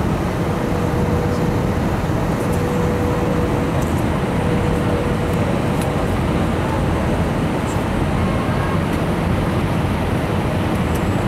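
Steady roar of an Airbus airliner's engines and airflow, heard as constant noise with a faint on-and-off hum.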